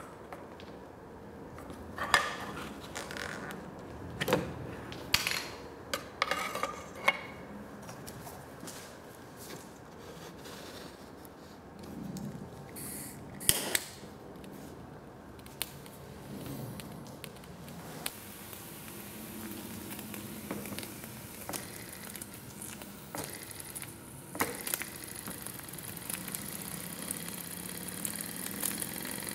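Knocks, clicks and scrapes as a small metal fuel burner is handled and lit under a miniature steam engine's boiler, with a sharp click about halfway through. A steady hiss then grows over the last ten seconds while the burner flame heats the boiler.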